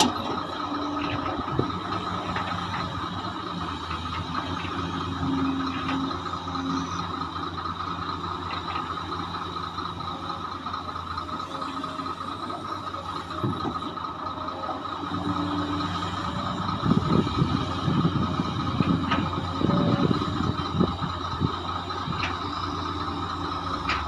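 Hydraulic excavator's diesel engine running under load with a steady whine, its note rising and falling as the machine works. From about 17 to 21 seconds a run of clattering knocks, as nickel ore is loaded into a dump truck.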